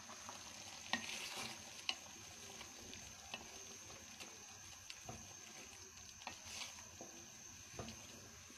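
Wooden spatula stirring a thick curry in a metal pan over a gas flame, with a faint sizzle and scattered light knocks and scrapes of the spatula against the pan.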